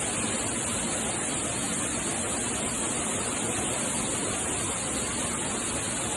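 Waterfall: a steady, unbroken rush of falling water with a strong high hiss.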